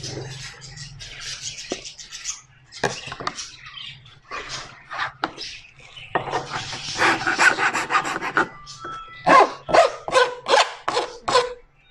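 Hand file rasping along the cut edge of an aluminium composite cladding panel to deburr it, in short irregular strokes, with a longer run of scraping about six seconds in and a quick series of sharper strokes near the end.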